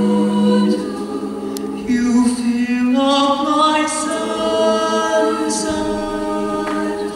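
Mixed-voice show choir singing long held chords, moving to a new chord about a second in and twice more a little later, then holding and slowly fading.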